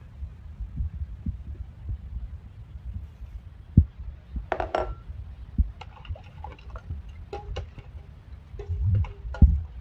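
Steel spoon clinking and scraping against a steel bowl as thick mango pulp is stirred, in a run of sharp clicks that grows busier in the second half, over low thumping from handling.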